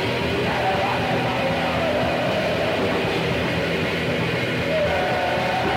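Raw black metal on a lo-fi, old-tape-sounding demo recording: a dense, steady wall of distorted noise with some pitched lines wavering through it.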